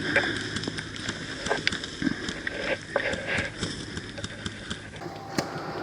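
Irregular short clicks and light knocks scattered throughout, with faint distant voices under them.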